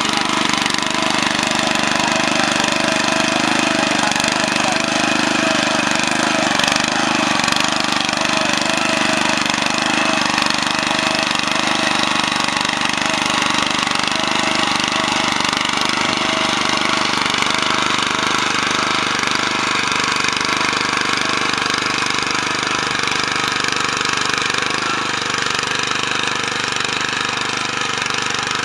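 Honda FJ500 walk-behind tiller's small petrol engine running steadily at a constant speed.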